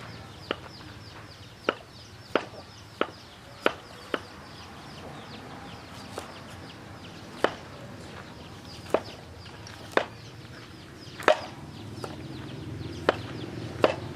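Sharp single knocks at irregular intervals, about one every second or so, over chickens clucking in the background.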